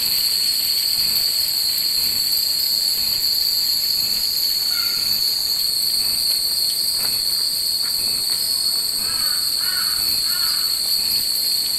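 Steady high-pitched buzzing of cicadas in the trees, with scattered faint tinkling of wind chimes.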